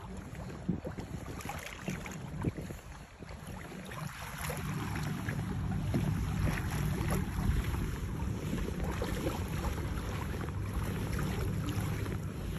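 Wind buffeting the microphone, with small waves splashing against a kayak's plastic hull. The wind noise grows stronger about four seconds in and stays up.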